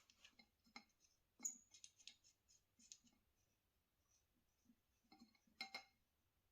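Faint, scattered clicks and light taps of a siphon coffee maker's parts being handled and fitted, with a slightly louder cluster of clicks near the end.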